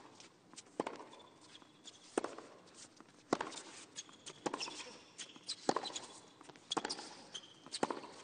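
Tennis rally on a hard court: the ball cracks off the rackets about once a second as the two players trade shots, with shoe squeaks between the hits.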